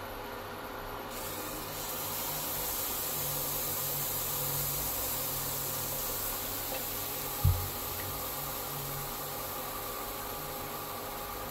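Pancake batter hissing softly as it cooks in a hot ceramic-coated frying pan, the hiss setting in about a second in as the batter goes into the pan. One sharp knock about seven and a half seconds in.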